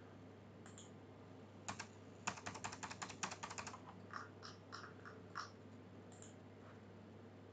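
Faint clicking of a computer keyboard and mouse: a few single clicks, then a quick run of about a dozen presses a couple of seconds in, then a few more scattered clicks.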